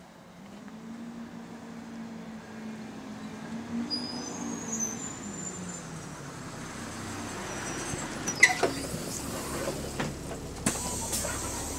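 Arriva London bus T142 drawing up to the stop, its engine and cooling fan making a low hum with wavering tones that grows louder as it arrives. About eight seconds in come sharp clicks and knocks and a short high tone as the doors open and a passenger boards.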